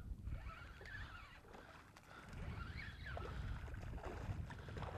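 Faint low wind rumble and water noise, with a small hooked redfish splashing at the surface as it is reeled to the boat.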